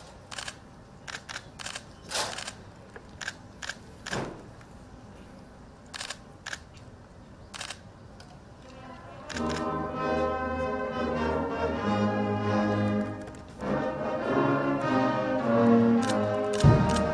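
Scattered camera shutter clicks, then about nine seconds in a military brass band starts playing a national anthem in slow, sustained chords.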